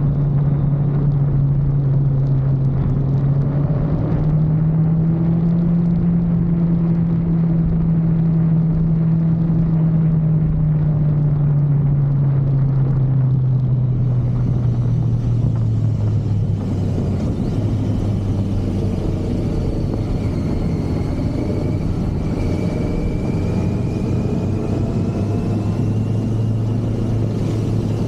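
Kawasaki Z900 SE's inline-four engine running steadily under way, its pitch rising a little and then easing lower, with a clear drop about two-thirds of the way through.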